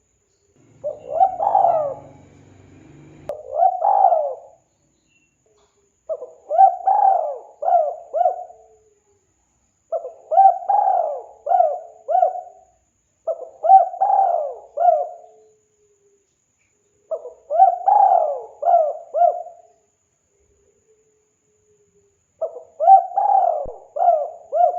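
Spotted dove (tekukur) cooing: seven phrases of three or four coos each, repeated every few seconds with short silences between.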